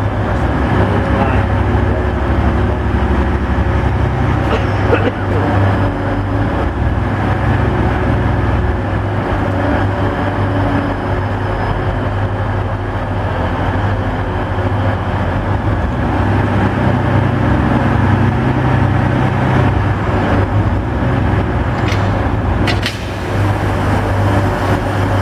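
Class 185 diesel multiple units' underfloor diesel engines running with a steady, loud drone as one unit creeps in to couple. Two short sharp knocks near the end as the automatic couplers come together.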